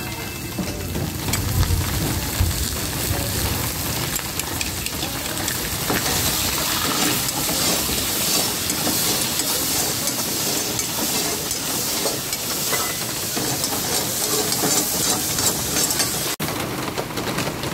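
Raw mutton pieces sizzling in hot rendered fat in a steel karahi, stirred and scraped with a metal spatula: the meat has just gone into the fat to sear. The sizzle is steady throughout, with the clatter of the spatula on the pan.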